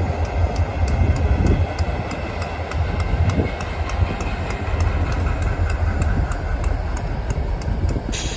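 Canadian Pacific diesel locomotives rolling slowly past, engines running with a steady deep rumble and wheels on the rail. A light regular ticking, about three to four times a second, sits above the rumble.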